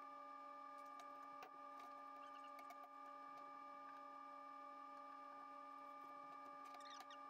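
Near silence: workshop room tone with a faint steady electrical hum and a few faint ticks.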